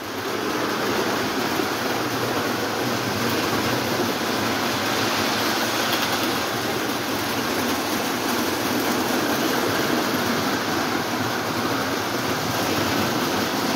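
Four Lionel O27 toy trains running at once, electric motors and wheels on the track making a steady noise.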